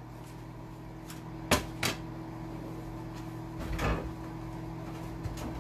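Kitchen door clicks and knocks: two sharp clicks about a second and a half in, then a heavier thump near four seconds as a refrigerator door is opened, over a steady low hum.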